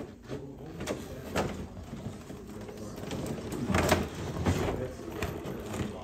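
Indistinct background chatter of people in a busy room, with a few sharp knocks about a second, a second and a half and four seconds in.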